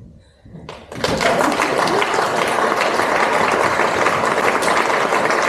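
Theatre audience applauding, breaking out suddenly about a second in and holding steady.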